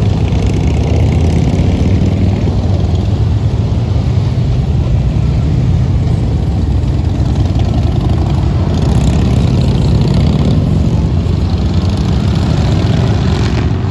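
A procession of cruiser motorcycles and trikes riding past, their engines running in a steady low drone with no break.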